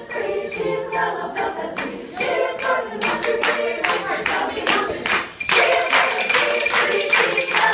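Women's a cappella chorus singing, with hand claps keeping the beat. About five and a half seconds in, the clapping becomes louder and denser, with voices still heard under it.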